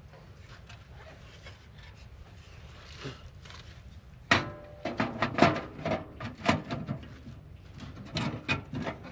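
Tent fabric and gear being handled: a run of irregular rustles, crinkles and light knocks that starts about four seconds in after a quiet stretch.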